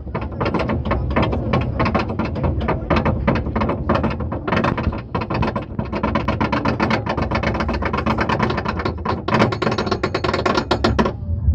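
Loch Ness Monster roller coaster train climbing the chain lift hill, its anti-rollback ratchet clacking about five or six times a second; the clacking stops abruptly near the end as the train crests the lift.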